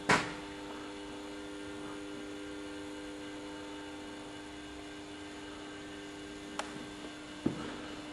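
A sharp bang at the start, then a steady low hum of several even tones that stops with a thump near the end, with a faint click shortly before.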